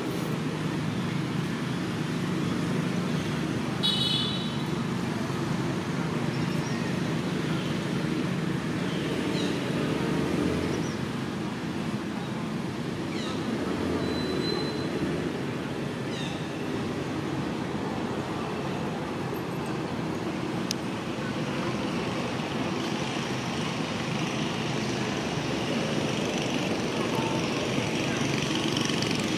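Steady outdoor background noise: a low rumble with faint distant voices, and a few brief high chirps, one about four seconds in.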